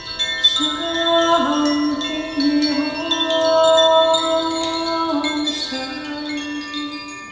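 A woman singing long held notes that step from one pitch to the next, over chimes ringing and tinkling, the whole slowly fading toward the end.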